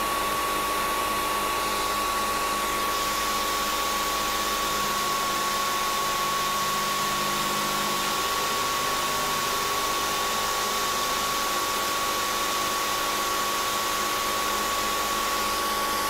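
Milling machine spindle running steadily while an end mill makes a slow, light cut in a vise-held part, taking passes of about fifty thousandths toward final depth. It gives a steady high whine over an even hiss.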